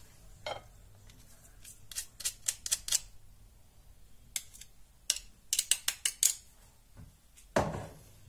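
Metal kitchen tools, a knife and a garlic press, clicking and tapping against a ceramic plate while garlic is pressed and worked into chopped parsley: two runs of quick, sharp clicks with a louder, duller knock near the end.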